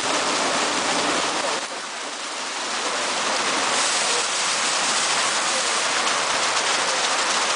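Water spray and spinning wash brushes of an Autobase tunnel car wash, hitting the car in a steady rushing hiss heard from inside the car. It dips briefly about two seconds in, then builds back up.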